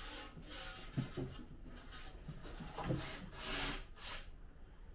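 Irregular scraping and rubbing, with a dull knock about a second in and another near three seconds, and a louder swish just after.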